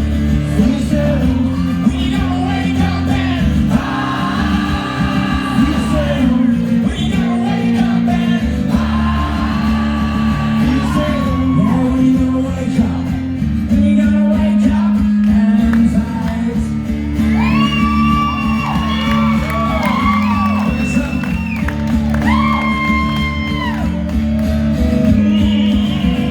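Live acoustic rock song: a strummed acoustic guitar under a male lead voice belting long held notes that bend at their ends, with a run of high sustained notes in the second half.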